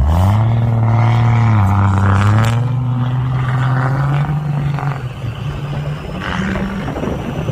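Truck engine revving up sharply, dropping a step after about a second and a half, then holding a steady pull under load before easing off about five seconds in.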